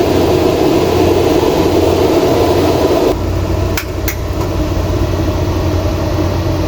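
Steady hum of a running Eltek telecom rectifier cabinet during an AC mains alarm test. About three seconds in the hum drops abruptly, and two sharp clicks follow, about a third of a second apart.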